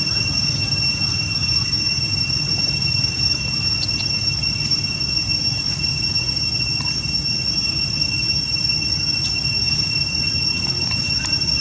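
A steady, high-pitched drone of insects holds unbroken over a constant low rumble.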